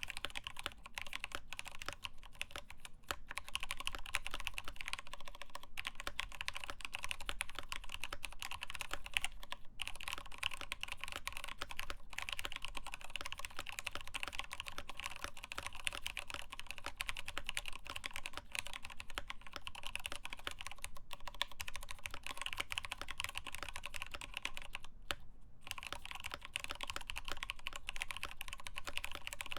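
Steady, fast typing on a mechanical keyboard: lubed Tealios linear switches on a steel plate with POM OEM-profile keycaps, in a Norbatouch case. The key presses run as a dense stream of clicks, with short pauses about 10 and 25 seconds in.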